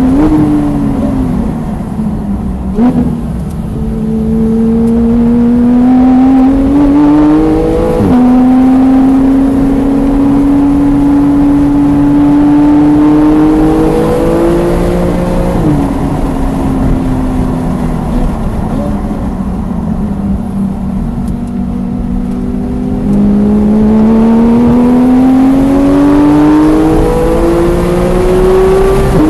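Porsche 991.1 GT3's naturally aspirated flat-six engine heard from inside the cabin, pulling through the revs in long rising sweeps, with a sharp drop in pitch at a gear change about eight seconds in. Midway it eases off to a lower, steady pitch, then climbs again under acceleration near the end.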